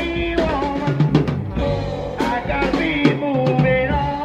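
Recorded rock band music with a drum kit keeping a steady beat and pitched instrument lines over it.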